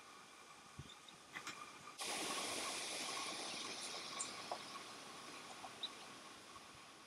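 Chestnut teal duckling splashing in the water inside a galvanised metal watering can while bathing: a rush of splashing that starts suddenly about two seconds in and slowly dies away.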